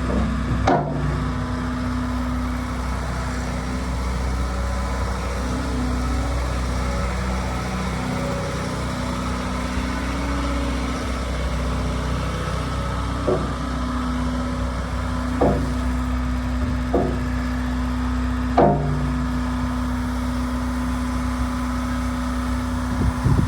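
JCB JS160 tracked excavator's diesel engine running steadily, with a handful of short clunks spread through.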